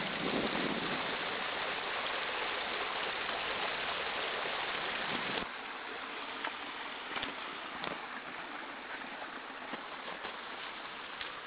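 Muddy floodwater from a heavy rainstorm rushing in a sheet over grass, a steady rush of water. It drops abruptly in level about five seconds in, and faint clicks are scattered through the quieter part.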